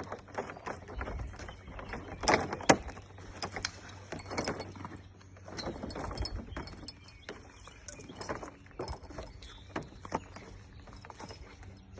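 Irregular clicks, knocks and rattles of a folding plastic kayak hull being handled during assembly, with two louder knocks about two and a half seconds in.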